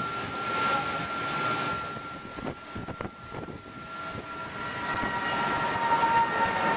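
Jet aircraft engine running with a steady high whine over a rushing noise. A few clicks come between about two and a half and three seconds in, and a second, lower whine joins near five seconds.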